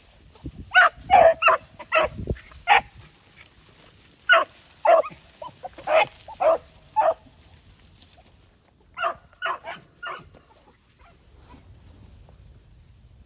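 Beagles baying on a rabbit's trail: short, pitched yelps in three bouts of several calls each, with quiet gaps between the bouts.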